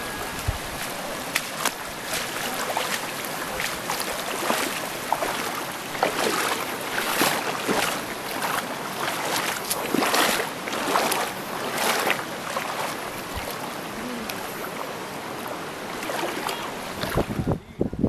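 Shallow river water splashing and sloshing over rock slabs, a steady wash broken by irregular sharper splashes that come thickest in the middle.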